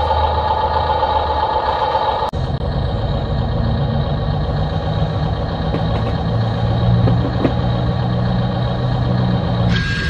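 Radio-controlled toy construction vehicles running: a steady motor drone, higher-pitched at first, that drops to a lower drone about two seconds in.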